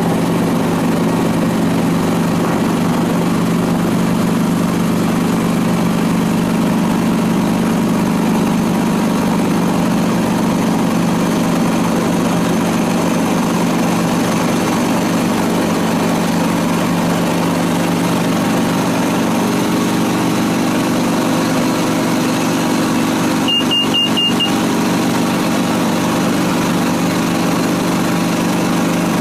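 Light aircraft engine running steadily, a constant drone heard from inside the cockpit. About 24 seconds in, a quick run of four high electronic beeps sounds.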